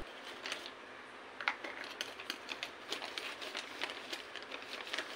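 Thin plastic packaging crinkling as it is handled: a quiet, irregular string of small crackles and ticks.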